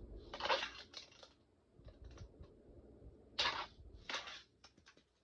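Fingerboard being worked by hand on plastic ramps: short scratchy rushes from the wheels and deck sliding and rolling, with light clicks and clacks of the board on the ramp surfaces in between.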